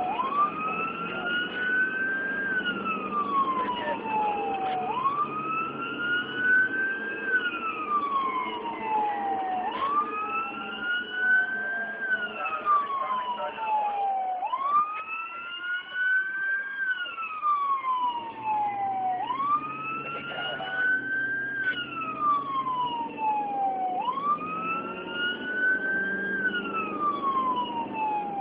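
Emergency-vehicle siren in wail mode: its pitch rises over about two and a half seconds, then falls over about two seconds, repeating steadily about every five seconds. A steady vehicle rumble runs underneath.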